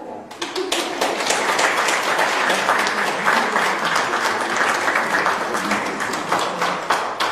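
Audience applauding: a roomful of people clapping their hands, breaking out just after the start and holding steady.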